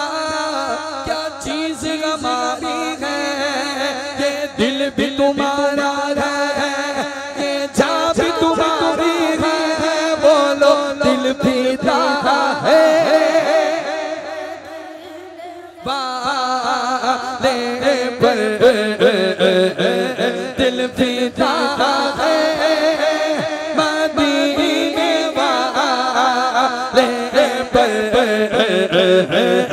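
A man singing a naat, an Urdu devotional hymn in praise of the Prophet, in long ornamented held notes. About halfway through the singing drops away, then comes back abruptly at full level.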